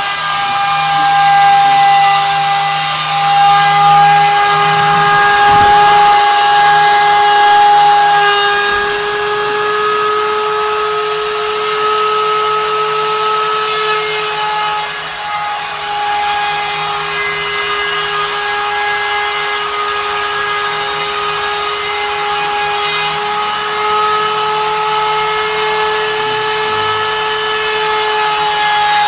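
Router spindle of a homemade CNC running at high speed while its bit mills lettering into a wooden board: a continuous whine with cutting noise, its pitch wavering slightly as the cut loads the motor.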